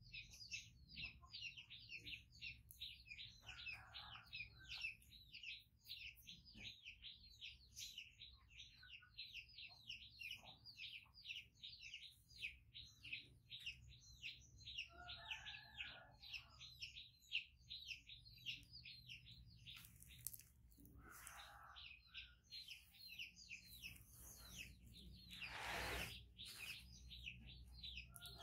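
Faint bird chirping: a fast, steady run of high chirps, several a second, with a few short lower calls now and then.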